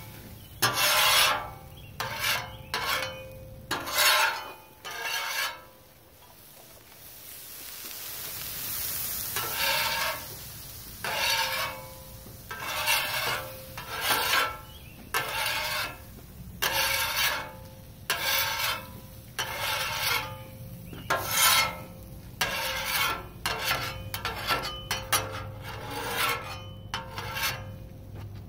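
Metal spatula scraping across a steel flat-top griddle in repeated rasping strokes, about one a second, clearing cooking residue off the plate. A few seconds of steady hiss come in about a quarter of the way through, between strokes.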